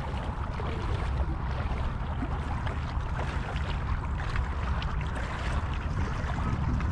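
Wind rumbling on the microphone over the steady wash of shallow sea water lapping at the shore.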